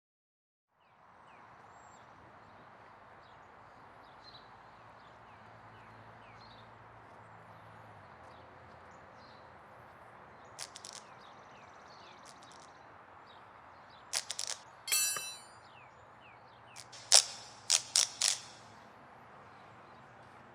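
Steady ambient background hiss with faint short chirps. From about halfway through come sharp metallic clicks and clangs, including a fast rattling run and a few loud hits near the end.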